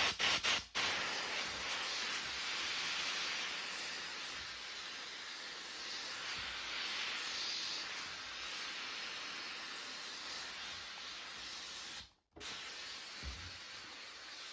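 A few quick bursts of hissing noise, then a steady hiss. The hiss cuts out abruptly near the end and then goes on more faintly.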